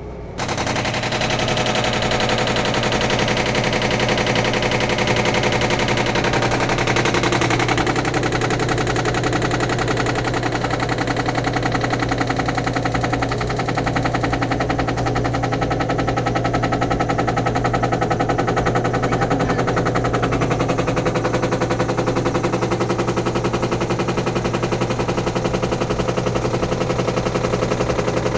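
Samsung washing machine running with a strange noise: a loud, very fast rattling clatter that starts abruptly and keeps going without a break.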